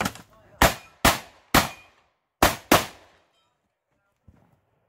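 Semi-automatic shotgun fired five times in rapid succession, each shot with a short echoing tail. There are three shots about half a second apart, then after a short pause two more in quick succession. Then it goes nearly quiet.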